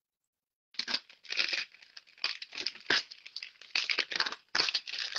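Clear plastic wrapping crinkling and tearing as it is pulled off a small cardboard box, in irregular crackling bursts that start about a second in.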